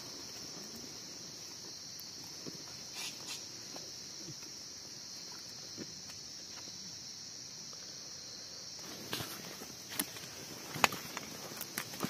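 Steady high-pitched insect chorus. A few sharp clicks and knocks come in the last few seconds.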